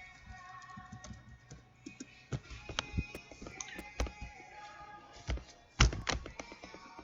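Background music with scattered sharp taps and knocks over it, several in the second half, the loudest near the end.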